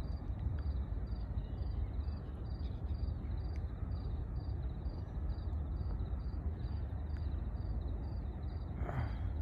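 Steady low outdoor rumble, with a short high chirp repeating about twice a second throughout.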